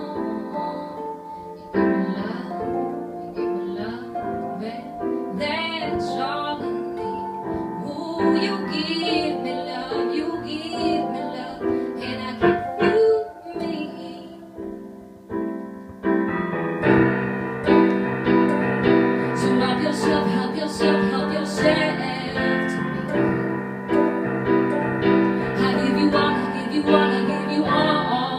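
A woman singing over piano in a live performance. The accompaniment grows fuller and louder a little past halfway through.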